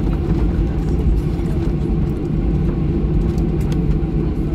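Cabin noise of a Boeing 737-800 taxiing: a steady low rumble from its CFM56 engines at taxi power and its wheels rolling on the taxiway, heard through the cabin.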